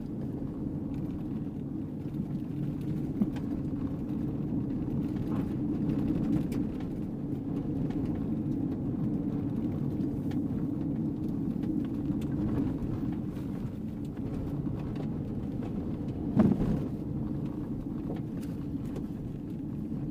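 A car driving on a gravel road, heard from inside the cabin: a steady rumble of tyres and engine with scattered small clicks, and one louder thump about three-quarters of the way through.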